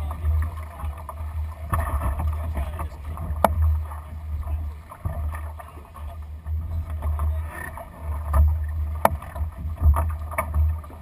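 Water rushing along the hull of a Lightning sailing dinghy under way, with a constant, wavering low rumble and a few sharp clicks scattered through it.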